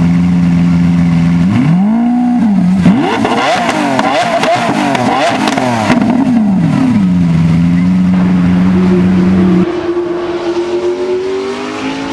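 Supercar engine holding a steady raised idle, then revved in a string of quick blips, its pitch sweeping up and down, before settling back to the steady note. About ten seconds in, it cuts to a quieter engine note that slowly rises in pitch.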